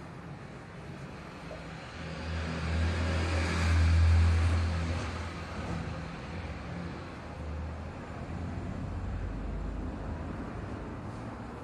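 A motor vehicle passing by. Its engine hum and road noise swell to a peak about four seconds in, then fade to a lower steady rumble.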